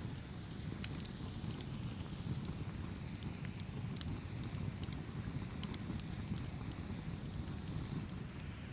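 Campfire burning with a steady low rumble of flames and irregular sharp crackles and pops of burning wood.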